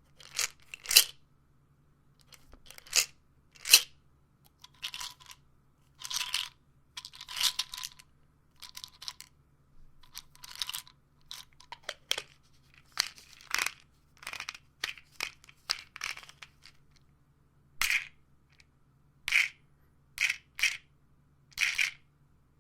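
Pills and a pill bottle being handled: pills rattling and clicking against the bottle in many short, separate bursts, with a few longer rasping stretches in the first half.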